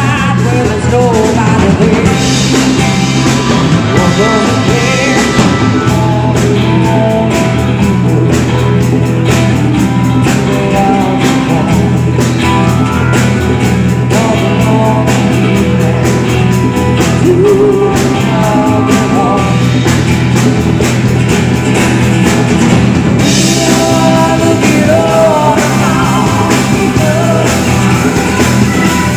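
A rock band playing live: a singer over a drum kit and amplified instruments, loud and steady throughout.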